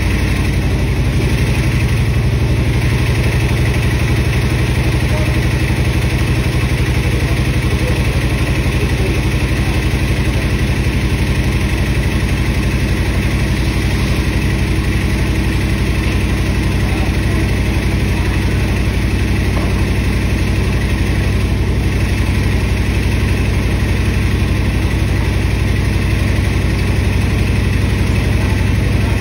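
Electrolux W4250S washer-extractor in its final extract spin with a double duvet, the drum spinning at a steady high speed. It is a loud, even machine hum with a strong low drone.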